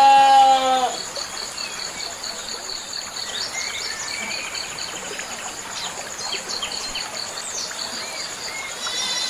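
A goat bleats once in the first second, a wavering call. Crickets then chirp in a steady high pulsing trill, with a few short bird chirps scattered through the middle.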